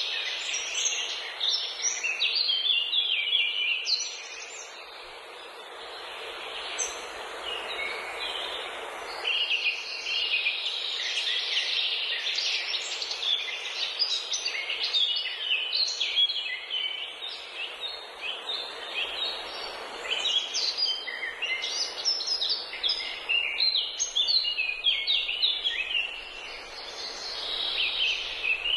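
Many birds chirping at once: a dense, overlapping chatter of short high chirps and trills. It thins briefly about five seconds in and again near the end.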